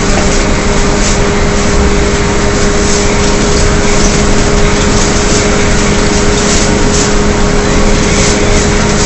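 Inside a 2009 Gillig Advantage transit bus with a Cummins ISL engine and Allison B400R transmission, cruising at steady speed: a steady drivetrain howl held at one pitch. Loud road and tyre noise from wet pavement runs underneath it.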